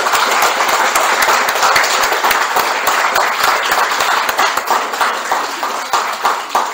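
A small audience applauding: many hands clapping together at a steady level, easing off near the end.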